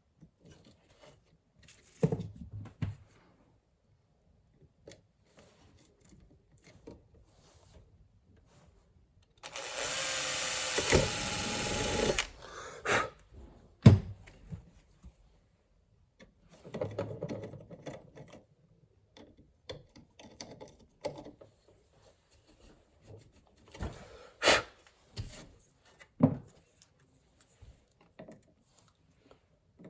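Hand tools clicking, tapping and knocking on an amplifier's circuit board and chassis during capacitor replacement, in short scattered bursts. Near the middle a loud, steady noise runs for about three seconds, followed by a sharp knock.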